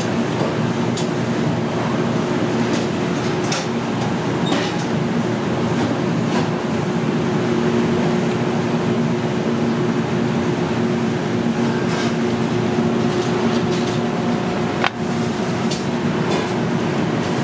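Steady drone of kitchen ventilation with a low two-tone hum, and a few light clicks and taps scattered through it.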